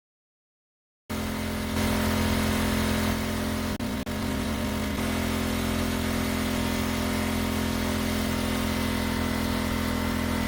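Small gasoline engine running steadily at a constant pitch. It starts abruptly about a second in and has two brief dropouts around four seconds in.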